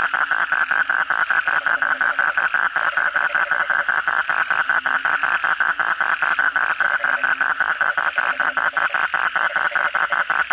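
A toad calling with its vocal sac inflated: one long, unbroken trill of fast pulses, about seven a second.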